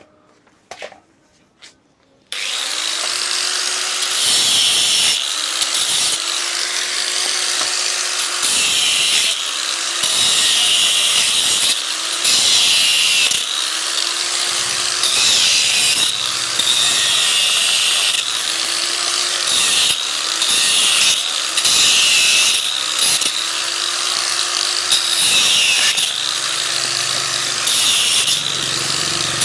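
A power tool starts about two seconds in and works in short repeated passes, surging about every one to two seconds.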